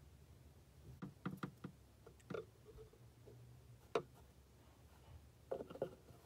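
A few faint, scattered clicks and taps from handling the tarantula enclosure. Near the end, metal feeding tongs reach in with a short run of taps.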